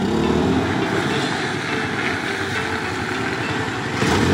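Auto rickshaw's small engine running steadily as the rickshaw drives away, with a sudden rise in level near the end.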